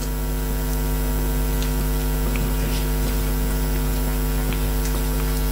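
Steady electrical mains hum: a low drone with a stack of even overtones, unchanging throughout.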